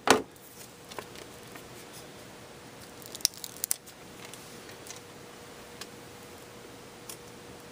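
Scattered sharp clicks and taps of off-screen handling: a loud double click at the start, a quick cluster of clicks about three and a half seconds in, and a few faint ones between, over a faint steady hum.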